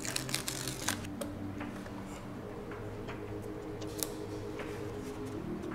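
Small clicks and light rustling of a paper sticker sheet being handled and a sticker pressed onto a plastic toy building, with the sharpest clicks near the start and about four seconds in. Soft background music with slow held notes plays underneath.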